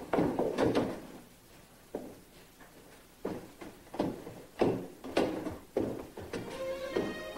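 Footsteps on a wooden staircase: a few uneven steps, a quieter stretch, then steps about every half second. Music comes in near the end.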